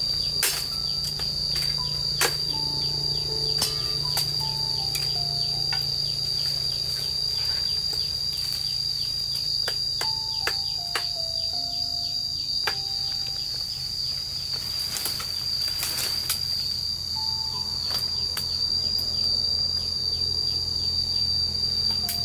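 Insects trilling in one steady, high-pitched tone, with scattered sharp clicks.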